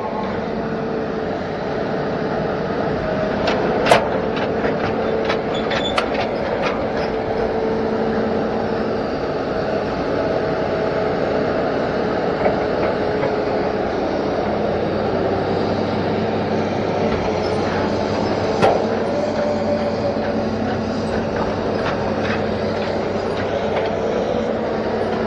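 Hitachi Zaxis 210F amphibious excavator's diesel engine running steadily as the machine travels on its pontoon tracks, with scattered metallic clanks and clicks from the tracks, the sharpest about four seconds in and again near nineteen seconds.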